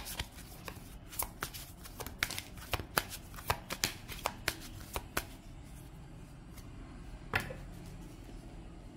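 A deck of oracle cards being shuffled by hand, a rapid run of card clicks and slaps for about five seconds. The shuffling then stops, with one sharper card snap near the end.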